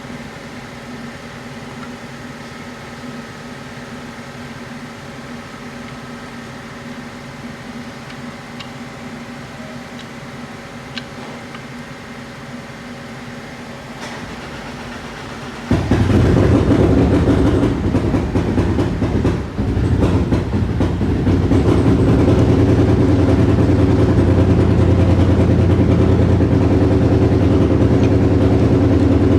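A steady machine hum, then about halfway through a much louder motor or engine suddenly starts and runs steadily with a strong low rumble.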